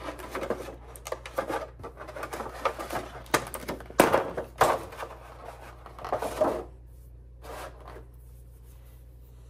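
Thin clear plastic blister tray crinkling and clicking as a rubber action figure is worked loose and pulled out of it, loudest about four seconds in; the handling stops near the end.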